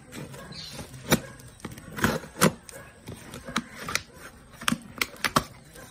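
Cardboard shipping box being opened: a knife slits the packing tape and the flaps are pulled open, giving irregular sharp clicks, taps and scrapes of cardboard.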